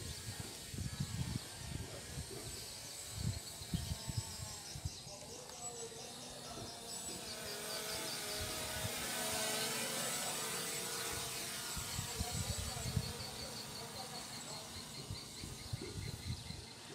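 Outdoor background noise: gusts of wind buffeting the microphone in uneven low rumbles, with faint rapid high chirping in the background.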